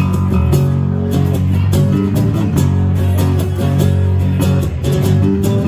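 Live acoustic guitar strummed in a steady rhythm over electric bass, an instrumental passage of the song with no singing.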